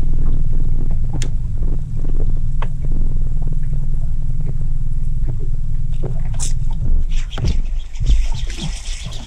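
A loud, steady low rumble cuts off suddenly about seven seconds in. Scattered clicks and a hissing splash follow as a bass is hooked on a topwater frog and thrashes at the surface.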